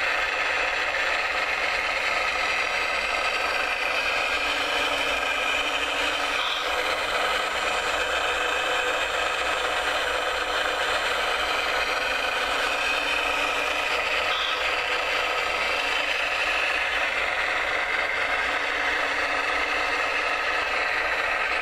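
Radio-controlled construction machines at work: small electric motors and gearing whirring steadily with a light mechanical rattle.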